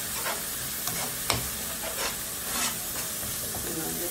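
Chili sambal sizzling in a non-stick frying pan while a slotted metal spatula stirs and scrapes through it, with one sharp knock on the pan about a second in.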